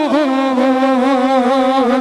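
A man's voice singing an Urdu naat, holding one long note with a slight waver after a short falling slide at the start.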